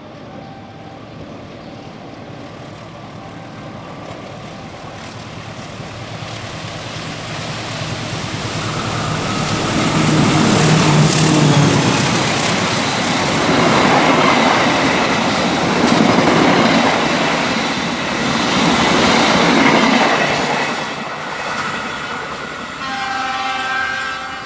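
Train passing on the track: the rumble of wheels on rails builds over several seconds, stays loud for about ten seconds, then eases. A train horn sounds briefly near the end.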